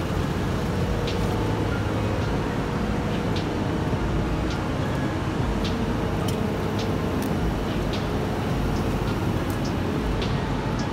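Steady low rumbling street noise, with faint small clicks scattered through it.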